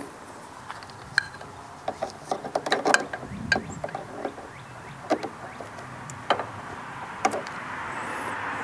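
Irregular light metal clicks and taps of pliers working a spring clamp onto a rubber fuel hose at a small-engine fuel pump, thickest in the first few seconds and then a few scattered clicks.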